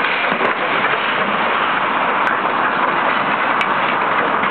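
Demolition excavator working on the site: a loud, steady mechanical noise of engine and machinery with no distinct knocks or changes.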